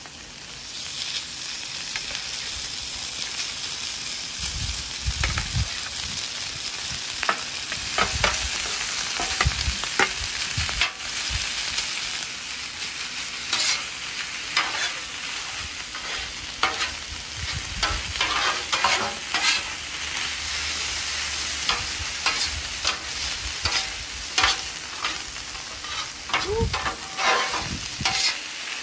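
Rice sizzling in butter on a Blackstone flat-top griddle, the hiss swelling about a second in as the rice hits the hot steel. Metal spatulas scrape and clack on the griddle top over and over as the rice is chopped and tossed.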